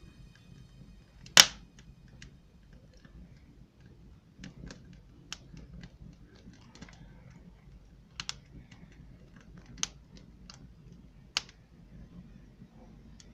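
Wood fire crackling: scattered small pops and snaps, with one loud crack about a second and a half in and a few sharper pops later.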